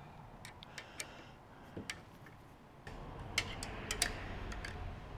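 Irregular small metallic clicks and ticks of an Allen key and nuts being worked onto bolts by hand, tightening them. A low hum comes in about three seconds in.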